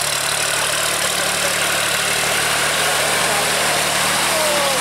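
Case IH JX55T tractor's diesel engine running steadily under load while pulling a rotary tiller through flooded mud. A low, even engine drone runs under a steady hiss.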